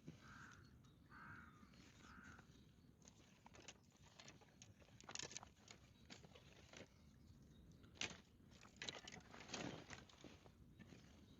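A bird calling faintly three times, about a second apart, followed by scattered light clicks and rustles.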